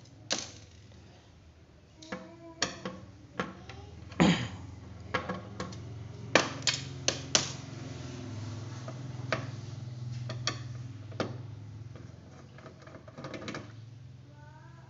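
Irregular metal clicks and taps of a screwdriver undoing screws on an LCD TV's sheet-metal chassis, with screws clinking, over a faint low hum.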